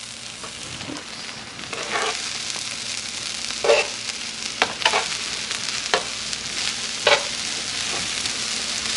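Fried rice and egg sizzling in oil on an electric griddle, with tongs scraping and tossing the rice in several short strokes. The sizzle grows a little louder about two seconds in.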